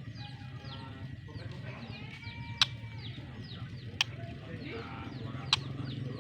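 Birds chirping in many short, quick falling notes, with three sharp clicks about a second and a half apart, over a steady low hum.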